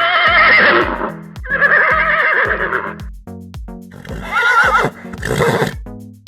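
Horse neighing: two long whinnies with a quavering pitch, then a shorter one about four seconds in, over background music with a steady beat.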